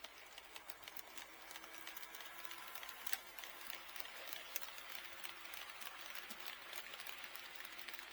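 HO-scale model train running on KATO Unitrack sectional track, its wheels clicking quickly and irregularly over the rail joints with a running hiss that grows louder in the first few seconds as it comes nearer.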